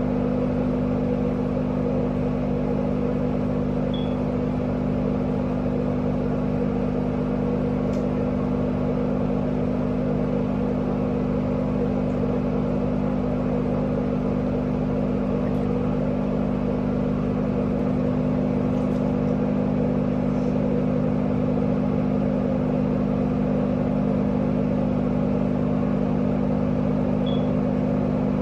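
Bathroom exhaust fan running: a steady motor hum with a few even low tones that does not change.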